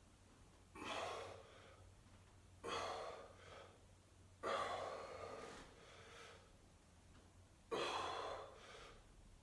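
A person's sharp, heavy breaths, four of them a second or two apart, each starting suddenly and trailing off.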